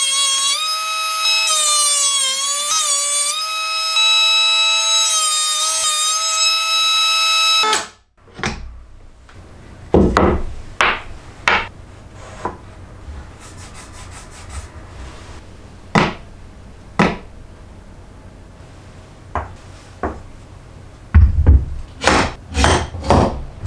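Makita KP180DZ cordless electric hand planer running in a thickness-planing jig, a steady whine that wavers in pitch, then switched off and stopping abruptly about eight seconds in. After that, a series of sharp knocks and clatters as wood blocks and the steel jig are handled, several in quick succession near the end.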